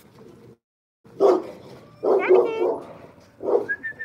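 A dog barking loudly, three barks, excited at other dogs it sees through a gate and wanting to run after them.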